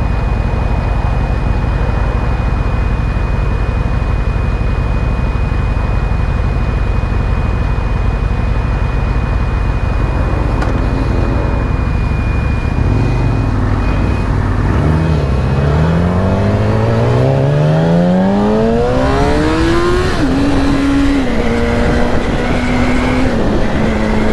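Motorcycle riding sound: heavy wind rush and a steady low engine drone. About halfway through, a sport bike's engine pitch climbs steadily for several seconds as it accelerates hard. It drops back a little and holds a roughly steady note near the end.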